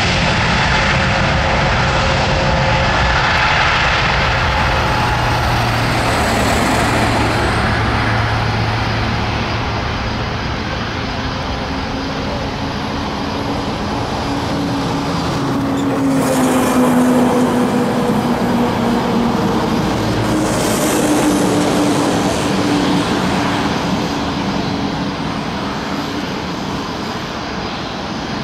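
Airbus A321neo's Pratt & Whitney PW1100G geared turbofan engines at high thrust on the takeoff roll, a loud steady jet noise as the airliner runs down the runway and away. The engine tones sink in pitch about halfway through as it pulls away.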